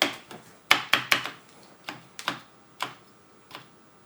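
Amiga keyboard space bar pressed repeatedly, clacking: a quick flurry of clacks, then single presses spaced out and growing fainter. The stabilizer guides are freshly greased, and the key is still a bit slow to return, which the owner puts down to too much grease or the grease being sticky.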